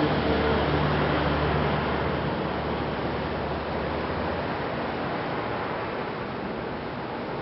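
Steady traffic noise with a vehicle's low engine hum that fades out about four seconds in.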